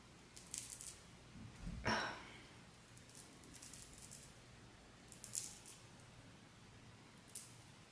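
Small eyebrow razor scraping across wig lace in a few short, faint scratchy strokes as the lace is cut along the hairline, with one louder brief bump about two seconds in.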